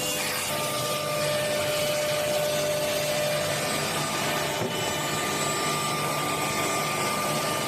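Four-head CNC router running: a steady dense rushing noise with a high, even whine from the spindles that sets in about half a second in.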